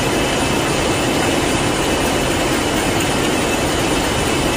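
Steady, unchanging machine-like drone with a faint constant high whine through it.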